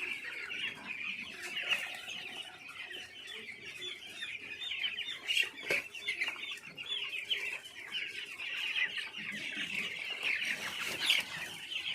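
Large flock of young chicks peeping all at once, a dense, continuous high-pitched cheeping of many overlapping voices.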